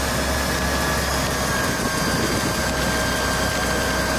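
Fire engine's diesel engine running steadily, a low hum with a thin steady whine over a broad rushing noise.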